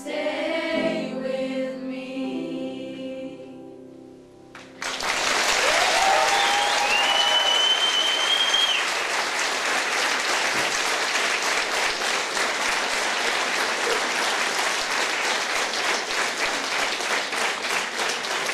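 A choir holds the final chord of a song, which grows quieter and ends after about four seconds. Audience applause then breaks out suddenly, with a whoop and a whistle near its start, and carries on steadily.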